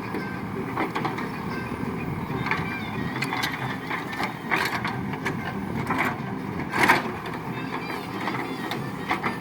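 ACE backhoe loader's diesel engine running steadily, with about half a dozen sharp metallic clanks and knocks from the working machine, the loudest about seven seconds in.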